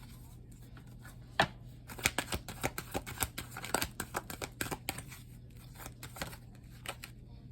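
Tarot cards being shuffled and handled: a run of quick, irregular clicks and snaps, the loudest about a second and a half in.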